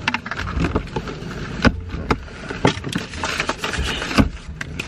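Paper fast-food bags and wrappers rustling and crinkling as food is unpacked by hand, in sharp irregular crackles, over a low steady hum.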